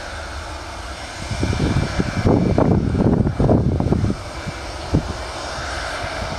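Airbus A319 jet airliner's engines running as it rolls along the runway: a steady low rumble with a hiss, swelling into louder, uneven rumbling for a couple of seconds in the middle.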